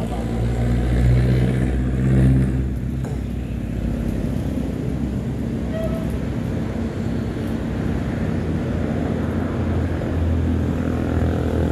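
Motor vehicle engine running with a steady low drone, as from road traffic.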